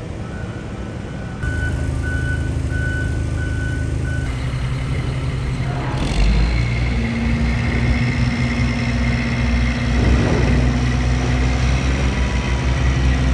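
Diesel engines of heavy demolition equipment, a John Deere hydraulic excavator working beside an idling dump truck, running steadily. A reversing alarm beeps about twice a second for a few seconds early on. The engine sound grows heavier and louder about six seconds in.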